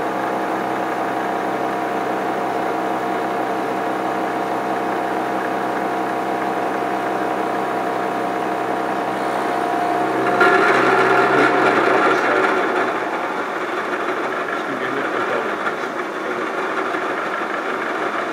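Vertical milling machine running, its rose cutter taking a facing cut across a metal block: a steady machine hum, then about ten seconds in a louder, rougher cutting noise takes over and stays.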